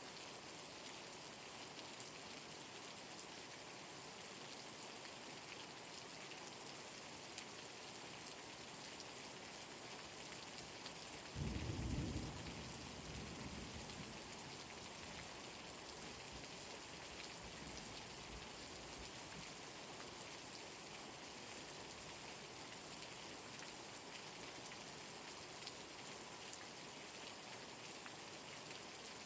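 Steady rain falling, with one clap of thunder a little over a third of the way in that starts suddenly and rumbles away over several seconds.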